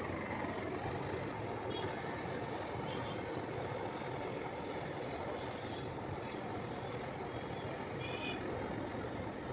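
Steady roar of a handheld twin-tip butane brazing torch flame heating the copper pipe joints of an AC condenser coil.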